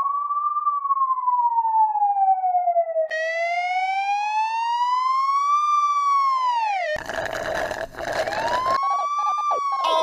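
Police car siren wailing, an electronically altered version, its pitch sweeping slowly up and down. It starts as a plain tone, turns buzzier about three seconds in, is cut by a burst of noise near seven seconds, then the wail resumes near the end.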